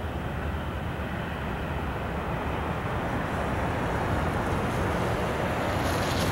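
Steady rushing wind noise on the microphone over a low, distant engine rumble, growing louder over the last few seconds.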